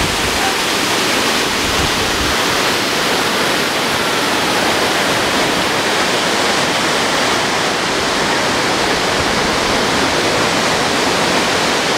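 Waterfall pouring over and onto rock, a steady rush of falling water.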